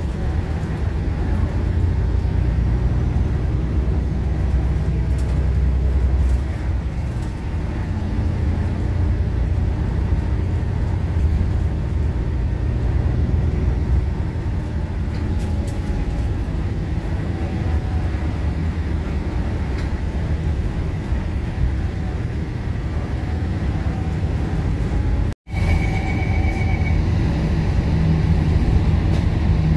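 MAN ND323F double-decker bus running on the road: a steady low engine and road rumble with a faint whine that slowly rises and falls as it changes speed. About 25 seconds in the sound drops out for an instant, and a short beep follows about a second later.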